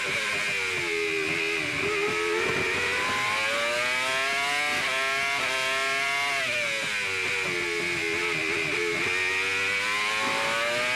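Honda V10 of a 2001 Jordan EJ11 Formula One car, heard on board at racing speed. The engine note twice drops in steps as the car brakes and downshifts, then climbs again as it accelerates back up through the gears.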